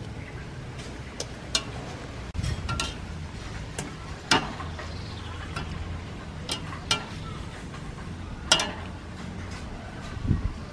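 A wire-mesh strainer clinking and tapping against a stainless steel pot as shrimp are lowered into the water: a handful of short, sharp clinks a second or two apart, over a low steady rumble.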